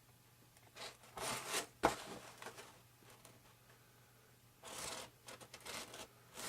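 A blade cutting and scraping along foam edges in two rasping strokes, the first about a second in and the second near five seconds, with a sharp click just before two seconds.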